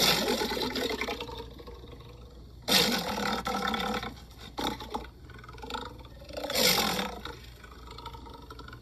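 Lions roaring: three long calls a few seconds apart, with a couple of shorter bursts between them.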